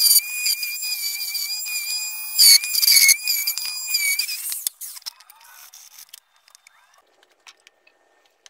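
Black & Decker random orbital sander running against carved pine with a steady high whine. The pitch dips briefly a little over halfway through its run as it is pressed into the wood. It stops about four and a half seconds in, leaving a few faint clicks of handling.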